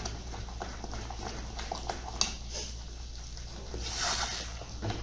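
Silicone spatula stirring thick, bubbling brigadeiro mixture in an aluminium pan: soft wet squelching with light scrapes and clicks, and a short hiss about four seconds in, over a steady low hum. The mixture is being cooked down on low heat towards the point where it comes away from the pan.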